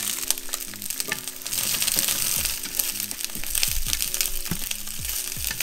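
Wild broccoli and chopped garlic sizzling in very hot vegetable oil in a frying pan, with clicks as chopsticks turn the stalks against the pan. Background music with steady low notes and a few deep falling bass notes plays underneath.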